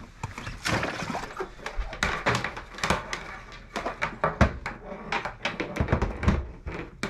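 A quick, irregular run of clicks and knocks, several a second, like objects being handled and set down.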